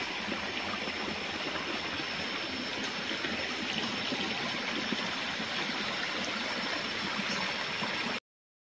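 Small forest stream running over rocks, a steady rush of water that cuts off suddenly near the end.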